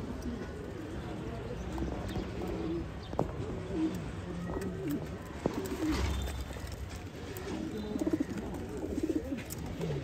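Domestic flying pigeons cooing repeatedly, low warbling coos following one another, with quicker pulsing coos near the end.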